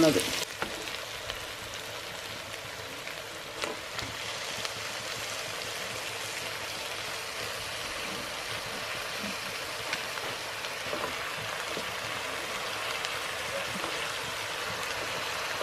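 Onions and raw mutton pieces sizzling steadily in hot oil in a pan, with a couple of faint knocks from the wooden spatula.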